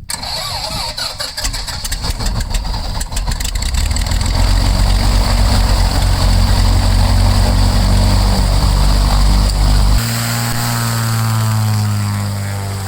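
A light plane's piston engine is cranked and catches, firing unevenly for the first few seconds before settling into a steady run. About ten seconds in, the sound changes abruptly to a different, steadier engine note.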